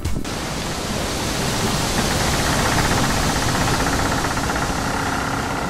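A steady rushing, hiss-like noise that swells slightly over the first few seconds.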